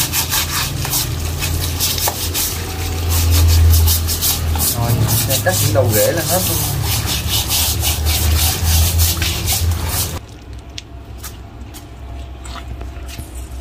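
Rapid scrubbing strokes as the bark and roots of a freshly dug wild yellow-apricot tree are rubbed clean by hand under running hose water. The sound stops abruptly about ten seconds in, leaving a quieter low hum and a few light clicks.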